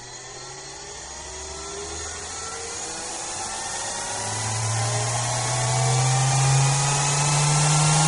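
Motor-driven spindle spinning a steel rotary encoder ring up to speed: a whine that rises steadily in pitch over a growing hiss, getting louder throughout.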